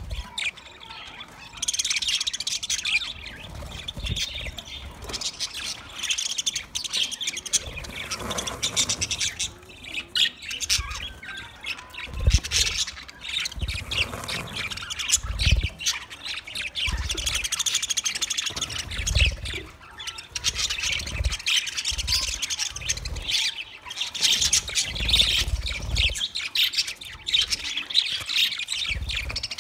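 A flock of budgerigars chirping, warbling and squawking all together in a continuous dense chatter, with occasional low thumps.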